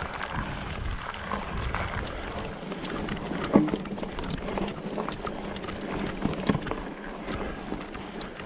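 Wind buffeting the microphone while the Fezzari Kings Peak's 29-plus mountain bike tyres roll over a dirt road on a steady climb, with many small ticks of grit and gravel and one sharper knock about three and a half seconds in.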